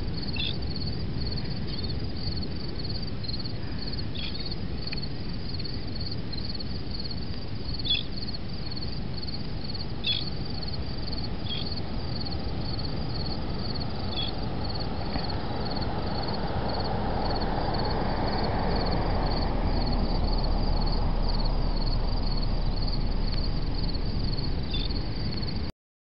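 Insects chirping in a steady, rapid, high-pitched pulsing trill, over a low outdoor background rumble that grows louder past the middle. A few short, high chips cut through, the loudest two about 8 and 10 seconds in.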